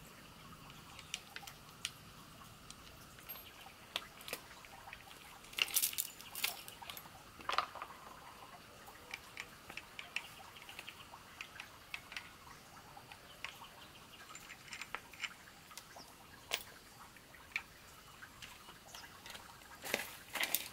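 Light clicks, taps and clatters of metal tool parts being handled and fitted together: a chainsaw chain and bar and a hand-held angle grinder. A short burst of clattering comes about six seconds in and again near the end.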